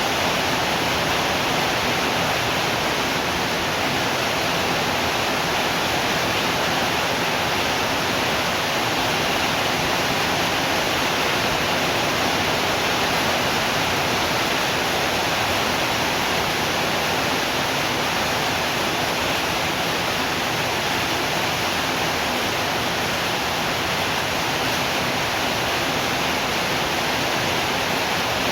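Steady rain falling, an even unbroken hiss with no thunder claps or other sudden sounds.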